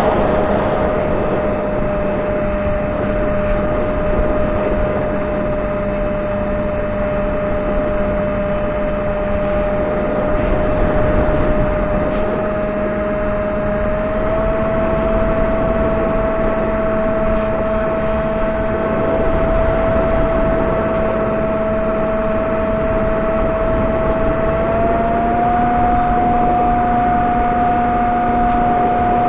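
Electric motor and pusher propeller of a Reptile S800 flying wing running at steady cruise, a constant whine with a rush of airflow over the onboard camera. The pitch steps up slightly about halfway and again near the end as the throttle is opened a little.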